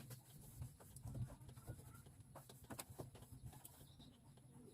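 Near silence: a faint, steady low hum with a few soft clicks.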